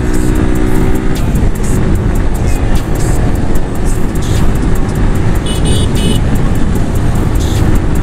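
Benelli TNT 300 parallel-twin engine running through an aftermarket Akrapovic exhaust as the motorcycle rides along at road speed.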